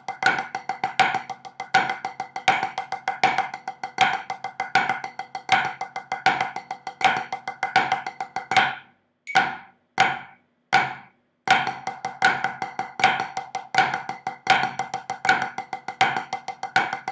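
Drumsticks on a practice pad playing flammed five-stroke paradiddles: a fast, even stream of strokes with regular accents. Just past the middle the playing stops for about two seconds, leaving only a few single strokes, then it starts again.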